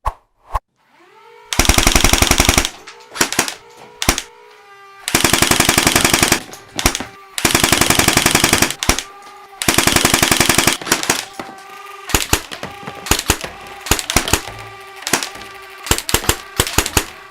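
Rapid automatic gunfire in four bursts of a second or so each, then a string of single shots, with a steady whine that rises about a second in and holds between the shots.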